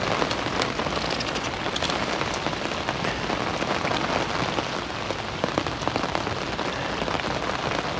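Steady rain falling on the fabric canopy of a fishing umbrella close overhead, a dense hiss of many small drop impacts.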